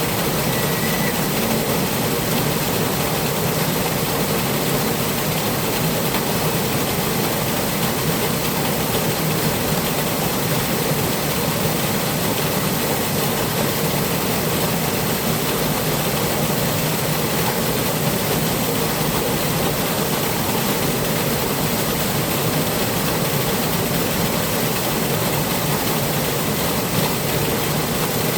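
Flowing, babbling water: a steady, even rush that doesn't let up.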